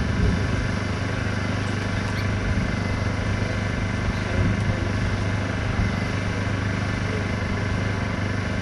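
A steady, unchanging mechanical hum from an engine running at constant speed, with a low drone.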